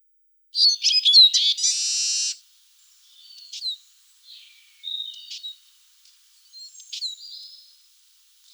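Eurasian siskin singing: a fast twittering phrase that ends in a drawn-out buzzy wheeze, followed by quieter twitters and short calls.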